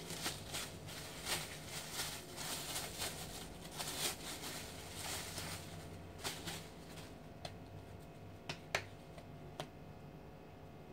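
Cling film crinkling and rustling as it is pulled off a ball of tortilla dough by hand, dense for about the first six seconds, then a few scattered light crackles and clicks.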